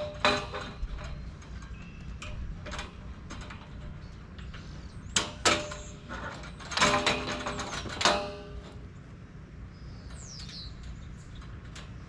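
Galvanized steel raised-bed panels clanking as they are handled and fitted together: a few sharp metal knocks with brief ringing, the loudest cluster about five to eight seconds in.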